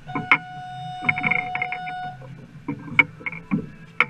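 Irregular sharp knocks and slaps around a small fishing boat drifting at sea. A steady electronic-sounding beep is held for about two seconds near the start.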